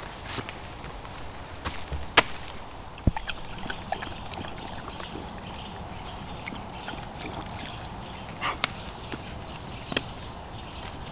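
Scattered sharp knocks and clicks, the loudest about two seconds in. A bird calls a quick run of short, high, falling notes, about two a second, in the second half.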